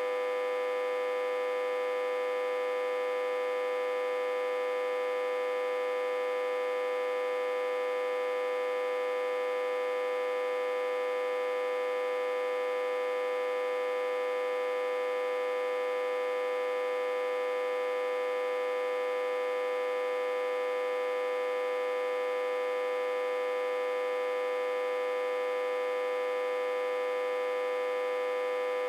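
Autotransformer humming: one steady, unchanging buzzy tone with many overtones. It is reverse-connected to a step-down transformer, with about 60–80 V on its input.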